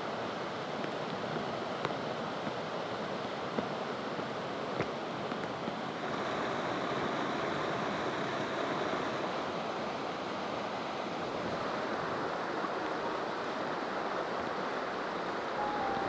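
Steady rushing of running water, with a few faint ticks; it grows slightly louder about six seconds in.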